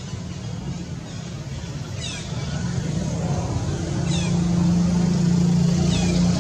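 A motor vehicle's engine running, a low steady hum that grows louder from about halfway through. Short high falling squeaks come about every two seconds.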